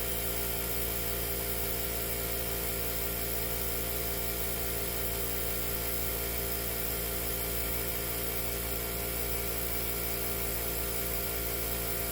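Steady mechanical hum of many fixed tones, as of a motor running, holding one level with no change.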